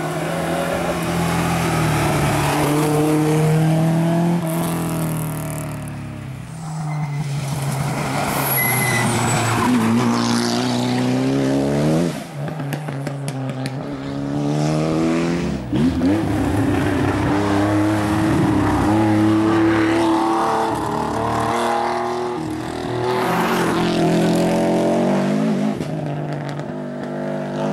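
Historic rally cars (a Mk1 Ford Escort, a Mitsubishi Galant and a Subaru Impreza) driven hard through a tight bend one after another. Each engine note climbs as the car accelerates and drops sharply as it lifts off or changes gear.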